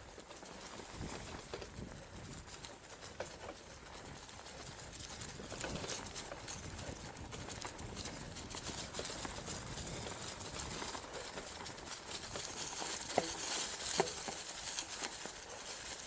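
Mongoose Tyax mountain bike rolling over a rough dirt track: tyres crunching on dry ground and leaves, with a steady patter of small rattles and clicks from the bike over the bumps. A rushing hiss of wind grows in the second half, and two sharper knocks come near the end as the bike hits bumps.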